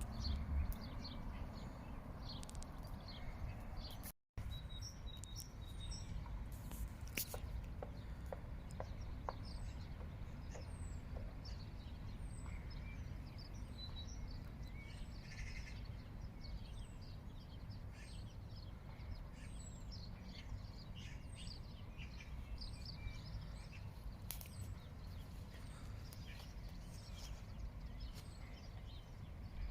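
Several songbirds singing and chirping, with many short repeated high chirps, over a steady low outdoor rumble. The sound cuts out briefly about four seconds in.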